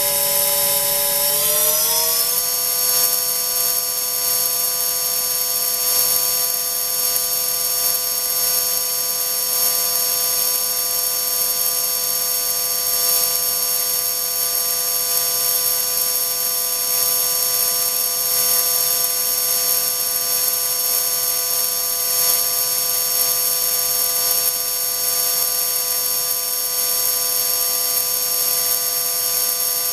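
High-speed electric motor spindle running on a test rig with a steady whine of several tones over a loud rushing hiss. About a second in, the whine rises in pitch as the motor speeds up from about 25,000 to 30,000 rpm, then holds steady.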